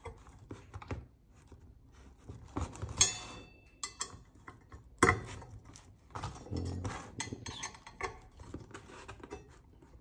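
Hex key clicking and clinking against the chainring bolts and crankset as they are snugged down: scattered small metal clicks, with two sharper knocks about three and five seconds in, the first leaving a brief metallic ring.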